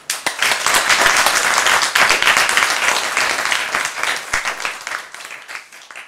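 Audience applauding: dense clapping that sets in at once, holds steady for about four seconds, then thins out and fades.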